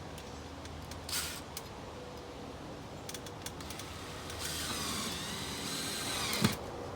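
Cordless drill-driver running for about two seconds near the end, its whine shifting in pitch as it drives a screw into a temporary panel, followed by a single knock. A brief rustle of handling about a second in.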